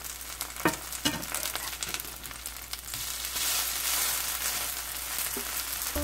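Mugwort pancake batter sizzling in hot oil in a nonstick frying pan, with two sharp taps of a metal slotted spatula against the pan in the first second or so. The sizzle grows louder about three seconds in.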